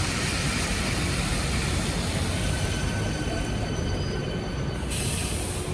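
Traffic on a rain-wet city street, with a red double-decker bus passing close by: a steady hiss of tyres and engines, with a faint high whine from the bus coming in about halfway through. A short burst of sharper hiss comes near the end.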